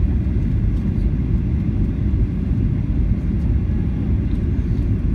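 Steady low roar of jet engine and airflow noise inside the cabin of a Boeing 737-800 descending on approach.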